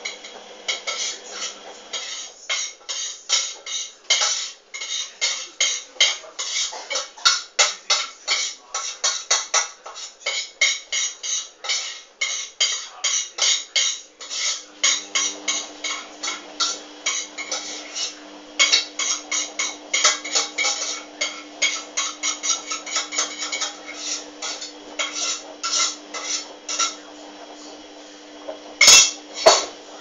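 Hoover front-loading washing machine in the main wash, its drum tumbling a sudsy coloureds load: a rapid, irregular run of clinks and clicks as the load knocks against the drum. A steady low hum comes in about halfway through, and there is one louder knock near the end.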